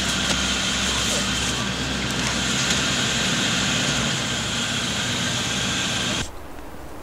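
A car's engine running as a sedan pulls away, over a steady outdoor noise. The sound cuts off abruptly about six seconds in.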